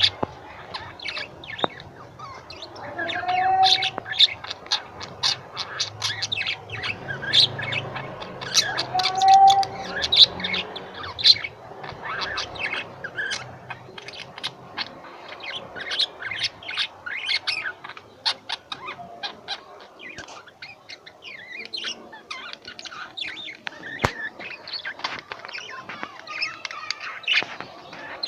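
Pet lovebirds chattering in a dense run of quick, high-pitched chirps.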